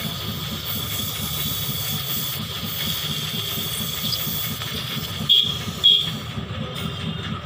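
Gas brazing torch burning with a steady hiss while its flame heats an aluminium car AC pipe joint and the filler rod. Two short, sharp, louder sounds cut in about five and six seconds in.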